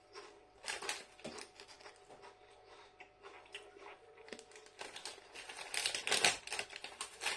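Metallised plastic crisp packet crinkling as it is handled and a hand rummages inside, loudest a little before the end. In the first seconds there are a few short crunches of crisps being chewed.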